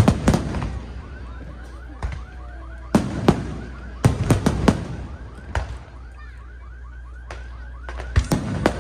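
Fireworks show: aerial shells bursting in sharp bangs, some single and some in quick clusters, with crackle after them. Through the middle, a repeating electronic chirp sounds about three times a second.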